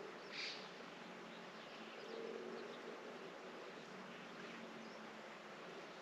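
A flying insect buzzing, its low hum swelling and fading twice over a steady outdoor hiss, with a short high chirp about half a second in.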